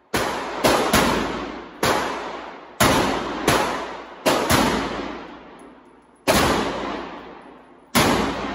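AK-pattern rifle fired in single shots, ten shots at an uneven pace, some less than half a second apart and others up to two seconds apart. Each shot rings out with a long echo in the indoor range.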